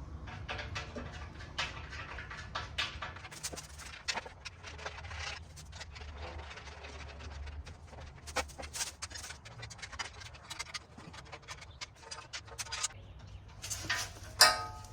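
Bolts being turned and tightened into a metal outdoor table base: irregular clicks, knocks and squeaks of metal parts and a hand tool, over a low steady hum.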